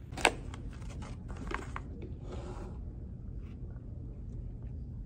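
A sharp click about a quarter second in, then a few smaller clicks and a brief rustle, over a low steady room hum.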